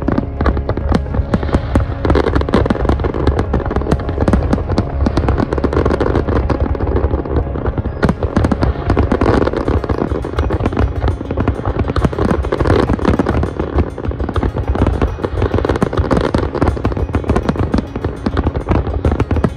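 Fireworks bursting and crackling in a dense, unbroken barrage, over background music.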